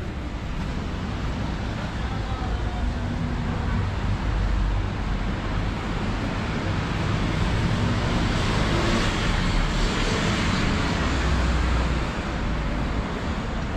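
Busy city street traffic: a steady low rumble of passing cars with a hiss. It swells louder about halfway through and eases near the end.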